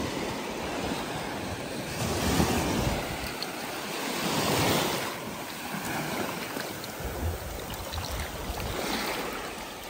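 Shallow surf washing up over wet sand, the rush of water swelling and ebbing a few times, with wind buffeting the microphone.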